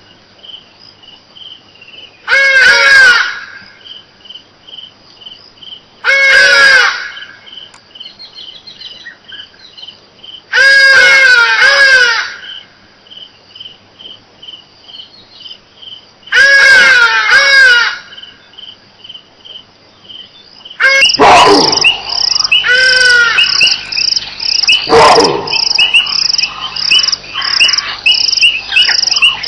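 Crickets chirping in a steady pulsing rhythm, cut across four times by loud, harsh bird calls a few seconds apart. From about two-thirds through, the calling turns into a dense, continuous chorus over the crickets.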